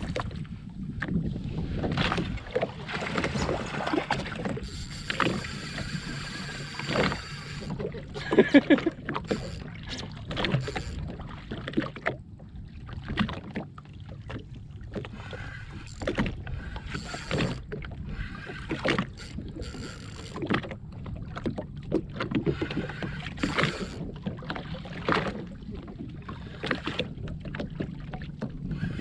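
Water slapping against the hull of a drifting Sea-Doo GTX jetski, with wind on the microphone and scattered short knocks and clicks from handling the fishing rod and reel.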